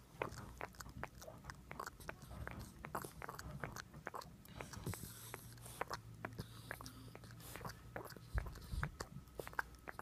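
Cane Corso puppy sucking in its sleep with its tongue out: a run of small wet clicks and smacks, several a second, with a low bump a little over eight seconds in.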